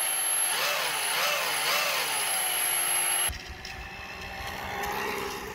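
Brushless hobby motor (Turnigy SK3 outrunner) of a friction-drive electric scooter spinning the tyre, its whine rising and falling about three times as it is throttled, over a steady high-pitched electronic whine. About three seconds in it cuts to a quieter low rumble with a faint motor whine as the scooter is ridden.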